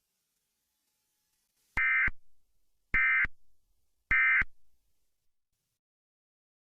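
Emergency Alert System end-of-message signal: three short electronic data bursts, evenly spaced about a second apart, marking the end of the alert broadcast.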